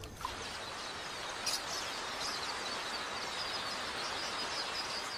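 Steady outdoor ambient hiss with faint, repeated high bird chirps.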